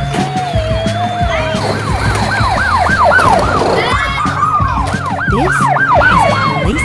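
Toy emergency-vehicle sirens going, several at once: a slow wavering wail at first, then quick overlapping rising-and-falling yelps.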